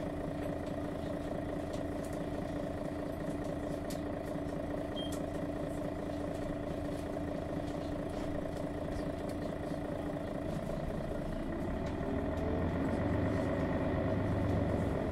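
Mercedes-Benz Citaro G articulated bus's Daimler OM 457 hLA six-cylinder diesel, heard from inside the bus, running at a steady note. About ten seconds in the engine note climbs in pitch and grows louder as the bus accelerates, then drops back suddenly near the end.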